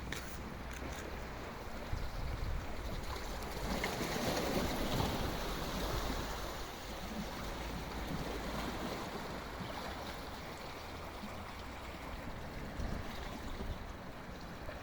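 Sea water washing, swelling up about four seconds in and easing off again, with a low wind rumble on the microphone.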